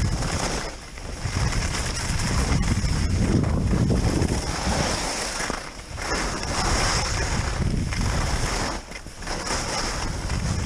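Wind buffeting the microphone and the hiss and scrape of sliding over snow on a downhill ski run, swelling and dipping every few seconds.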